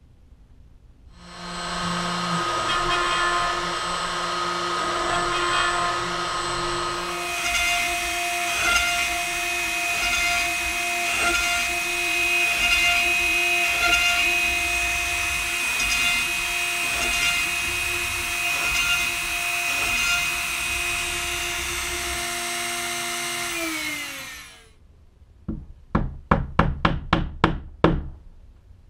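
The CNC router's spindle motor starts up about a second in and runs with a steady whine, its sound thickening about seven seconds in as it cuts into the MDF bed. It then spins down with a falling pitch, followed by a mallet tapping wooden dowels into the bed: a quick run of about eight knocks.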